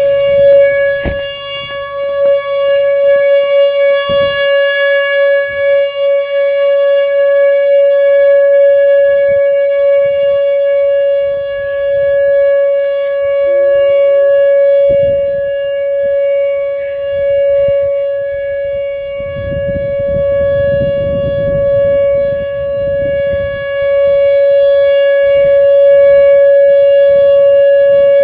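Whelen electronic outdoor warning siren sounding a single steady, level-pitched alert tone in a tornado siren test. The tone is loud and buzzy with many overtones, and its loudness slowly swells and fades.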